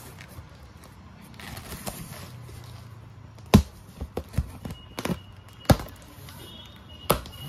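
Red plastic packing tape being picked at and peeled back off a corrugated cardboard box, with a rasping stretch about a second and a half in. This is followed by several sharp knocks and taps on the cardboard as the flap is worked open.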